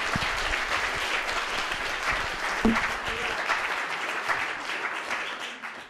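Audience applauding, a dense steady clapping that tails off near the end.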